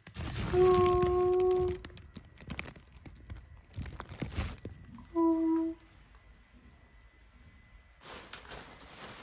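Thin green fabric of a pop-up cat tunnel rustling and crinkling as a cat shifts inside it. Two short steady pitched tones sound over it, one about a second long near the start and a shorter one about five seconds in.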